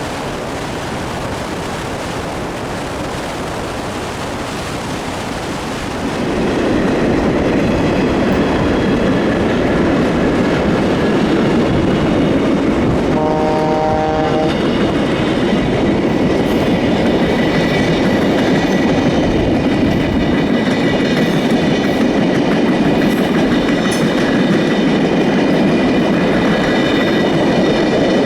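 A train running on the rails, its rumble growing louder about six seconds in and staying loud, with a single horn blast of about a second and a half near the middle.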